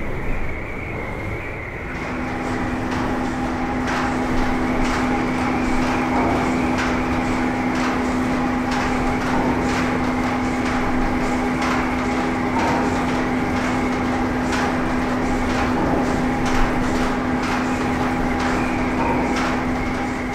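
Steady mechanical hum that gains extra steady tones about two seconds in, with irregular sharp clicks and knocks scattered throughout.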